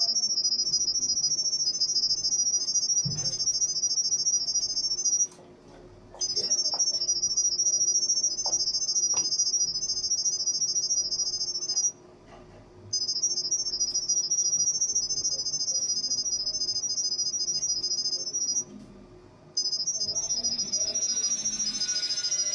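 Smartphone speaker playing an IP camera's sound-wave WiFi pairing signal: a high, rapidly warbling chirp of stepping tones that sends the WiFi details to the camera. It comes in stretches of about five seconds with short pauses of about a second between them.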